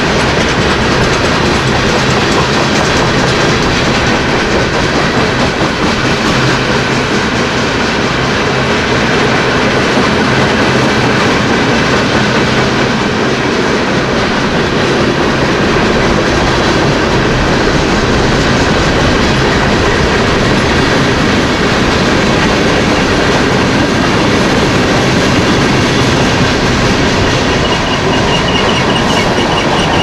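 Freight cars of a passing train rolling by steadily: a continuous rumble of steel wheels on rail with a clickety-clack rhythm, and a faint high wheel squeal near the end.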